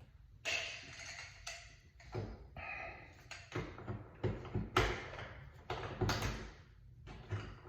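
Metal doorknob parts being handled and fitted into a door: a run of uneven clicks, knocks and rattles.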